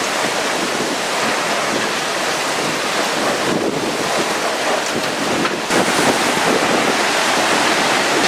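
Hurricane eyewall winds gusting hard, with wind buffeting the microphone; the roar gets louder a little over halfway through.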